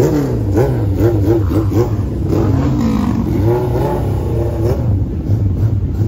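Dodge Challenger engine giving a steady deep rumble as it drives slowly past. Over it, engines rev up and down in quick blips during the first five seconds as motorcycles ride out behind it.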